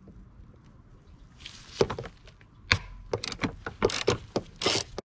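Hand tools being handled in a car's engine bay: a metal socket extension knocking and rubbing against plastic engine parts, in scattered clicks, knocks and short scrapes. The sound stops abruptly near the end.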